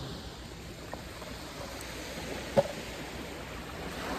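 Steady wash of gentle surf along the beach. About two and a half seconds in, a single sharp click from the clear plastic rod box being handled, with a fainter click near the first second.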